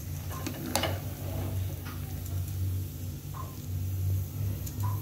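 A spoon scraping and clinking against the side of a metal pressure cooker as cooked biryani rice is stirred. There is a sharp clink under a second in and a few softer ones after it, over a steady low hum.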